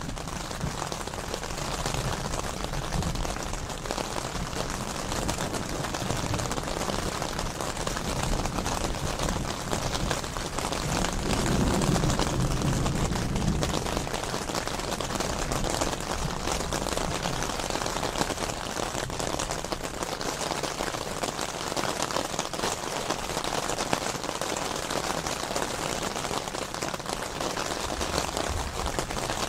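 Steady rain falling in a mountain thunderstorm, with a low rumble of thunder swelling and fading about eleven to fourteen seconds in.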